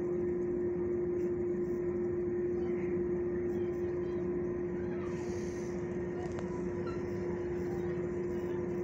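Steady machine hum with one constant tone, unchanging in level, over a faint background hiss.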